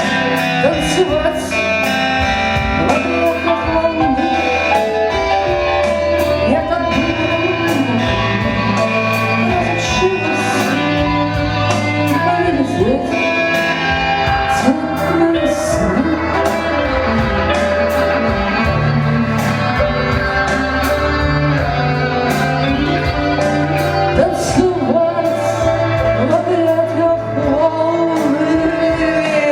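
Live band music: electric guitar and keyboards over cymbals keeping a steady beat, with a melodic line that bends and slides in pitch on top.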